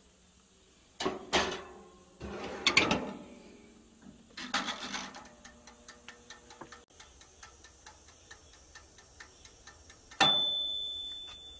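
Metal clanks as an old toaster oven is loaded and its door shut, then the oven's clockwork timer ticking about three times a second. About ten seconds in, the timer's bell gives one loud ding that rings and fades.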